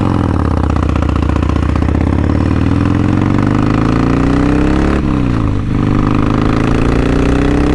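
2005 Harley-Davidson Sportster 1200's V-twin engine pulling hard under acceleration, its pitch rising steadily. About five seconds in the revs drop sharply, as at an upshift, then climb again.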